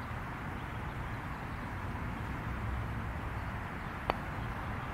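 A putter striking a golf ball once: a single short, sharp click about four seconds in, over a steady low background rumble.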